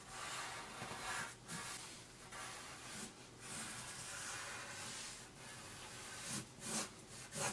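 Graphite pencil scratching across paper in repeated strokes with short breaks, going back over a drawing's outlines to darken them.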